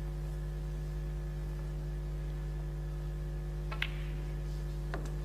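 Steady electrical mains hum, with one sharp click about four seconds in and a fainter click about a second later: snooker cue and balls striking.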